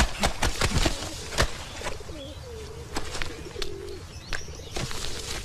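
Wet clothes being scrubbed and beaten by hand in a washtub, a series of sharp slaps at uneven intervals, with a low wavering coo going on behind.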